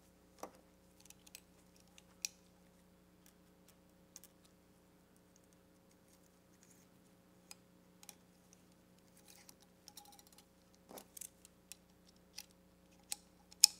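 Scattered light metal clicks and ticks as a band clamp is wrapped around a CV axle boot and a banding tool is fitted onto the band and worked with a ratchet wrench, over a faint steady hum.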